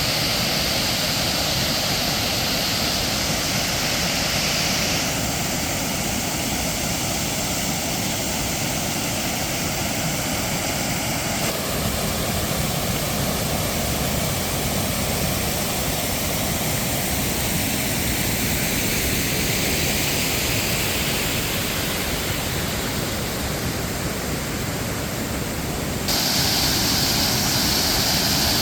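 Waterfall and creek rushing, a loud, even noise with no distinct events. Its character shifts abruptly a few times.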